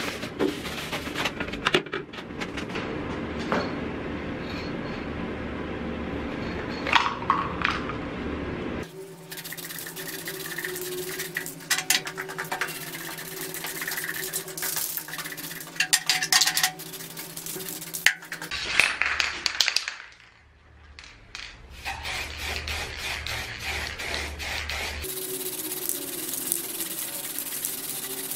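Aerosol spray-paint cans hissing in short passes, with scattered clicks and knocks between them. The sound changes abruptly several times as one pass ends and another begins.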